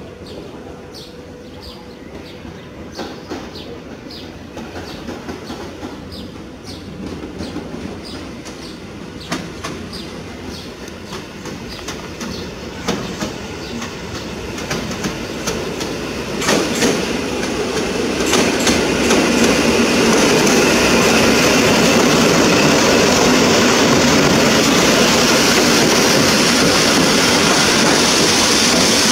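EN57 electric multiple unit running into a station: its wheels click over rail joints and points, growing steadily louder as it approaches, then a loud steady rolling noise from about two-thirds of the way through as the train passes close.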